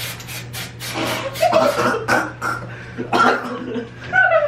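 An aerosol can of temporary hair colour working in quick even strokes, about four a second, for the first second or so. Then a young man coughs in three short fits, choking on the spray.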